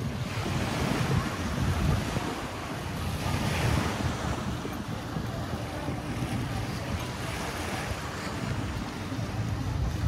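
Sea waves washing onto a beach in a steady wash of surf that swells now and then, with wind rumbling on the microphone.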